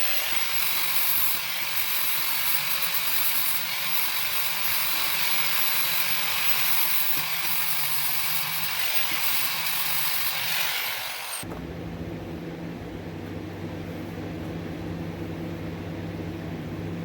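Vulcan MigMax 215 MIG welder arc crackling and sizzling steadily as it lays a weld with .030 wire under 75/25 shielding gas. It stops abruptly about eleven seconds in, leaving a quieter steady hum.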